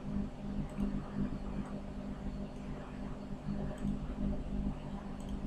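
Low steady hum from the recording background, with a few faint scattered clicks.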